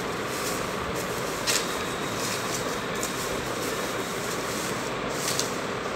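A plastic packing sleeve rustling and crinkling as an electric guitar is pulled out of it, with sharper crinkles about a second and a half in and again near the end, over a steady background hiss.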